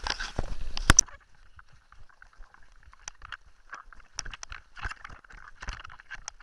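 Mountain bike rattling over a rough dirt track, picked up by a camera mounted at the handlebars: a denser rush with a sharp knock about a second in, then sparse irregular clicks and rattles from the bike over the stones.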